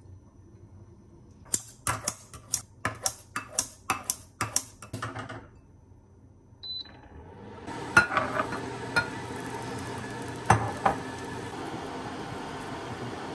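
A utensil clinking sharply against glass about a dozen times in quick succession as kimchi is scooped from a glass jar into a glass bowl. After a pause comes a short high beep, then a steady hiss with a few knocks as oil heats in a pan on the cooktop.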